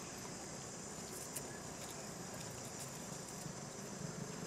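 Steady high-pitched insect chorus, with a single short click about a second and a half in.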